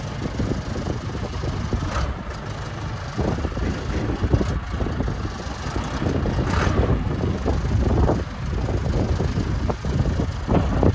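John Deere 310D backhoe's 70 hp John Deere diesel engine running steadily, with two brief higher-pitched noises about two seconds in and again past the middle.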